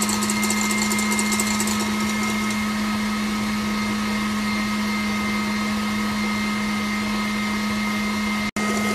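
Stand mixer running steadily at high speed, its wire whisk beating eggs in a steel bowl while hot sugar syrup is trickled in for French buttercream: a steady motor hum with a fainter high whine. A fast high rattle over the first couple of seconds, and the sound cuts out for an instant near the end.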